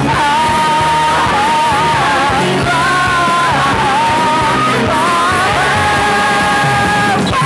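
Stage musical number: a male lead singer belting a melody over instrumental accompaniment, holding one long note near the end.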